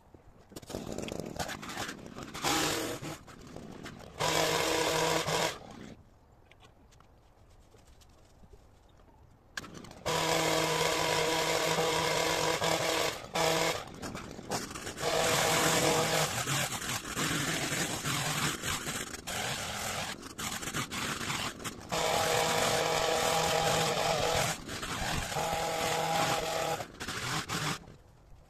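Long-reach pole hedge trimmer running in repeated bursts, its motor going up to full speed for one to three seconds at a time as it cuts and dropping back between cuts. It goes nearly quiet for a few seconds about a quarter of the way in.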